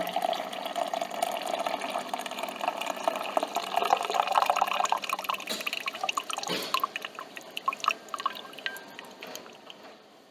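Coffee machine dispensing coffee into a cup: a steady trickling stream with a faint machine hum, which stops about halfway through. It then breaks into single drips that slow and fade out.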